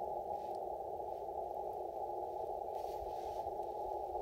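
Icom IC-705 receiver on the 80 meter band in CW mode, giving a steady hiss of band noise squeezed into a narrow mid-pitched band by the CW filter. No signals come through: the frequency is empty.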